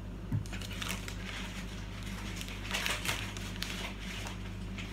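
Faint rustling and light knocks of grocery packets and tins being handled, a little louder about three seconds in, over a steady low hum.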